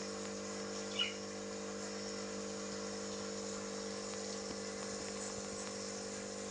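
A single short, high chirp from a young cockatiel about a second in, over a steady low hum and a high hiss.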